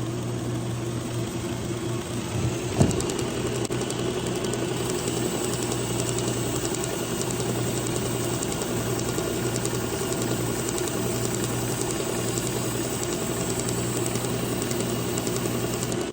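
Work Sharp Ken Onion Edition electric belt sharpener with its blade grinding attachment running steadily, a kitchen knife's edge being ground on the abrasive belt. There is a single knock about three seconds in.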